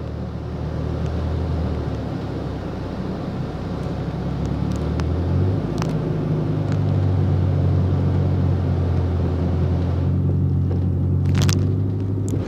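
Bus engine and running gear heard from inside the passenger cabin: a steady low drone that rises in pitch and gets louder about five seconds in, with a few clicks and rattles.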